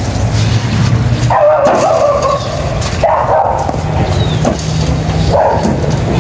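A dog barking three times, each bark drawn out to half a second or more, over a steady low hum.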